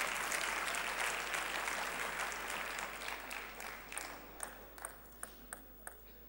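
Audience applause that fades away over about four seconds, thinning out into a few separate sharp taps near the end.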